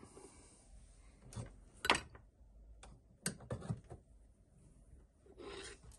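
Handling noises: a few separate knocks and clicks, the loudest about two seconds in, with a short rustle near the end.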